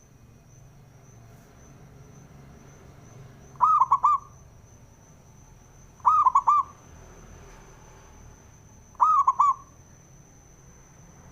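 Zebra dove (perkutut) cooing: three short phrases of about four quick notes each, spaced two to three seconds apart.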